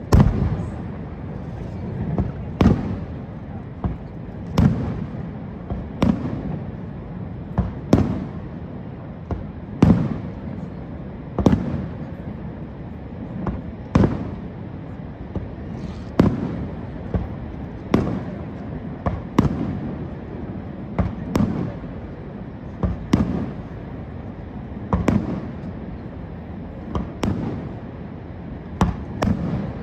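Aerial fireworks shells bursting, a sharp bang every second or two, each followed by a rolling echo that dies away, over a steady low rumble.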